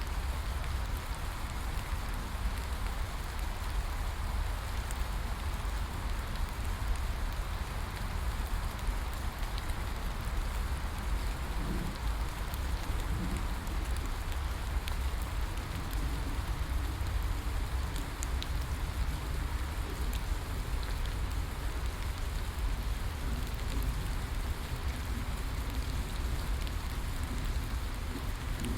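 Steady rain falling, with scattered sharp drop ticks over a constant hiss and a low steady rumble underneath.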